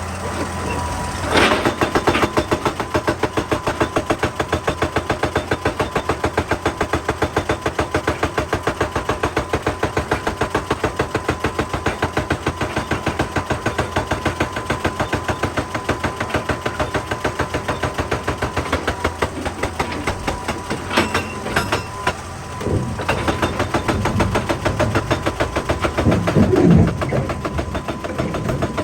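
Excavator-mounted hydraulic rock breaker hammering rock in a rapid, even stream of blows over the running diesel engine. About two-thirds of the way through it stops for a moment with a few separate knocks, then starts hammering again.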